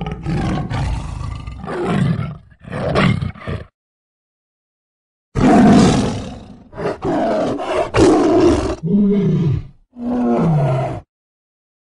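Tiger roaring in two bouts: a run of rough roars lasting nearly four seconds, then, after a pause of almost two seconds, another run of roars ending in two shorter calls that each fall in pitch.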